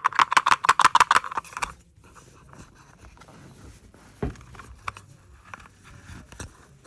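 Packaging being handled as a case is taken out of its small box: a quick run of crinkling, scratching clicks for about two seconds, then a few scattered soft taps and knocks.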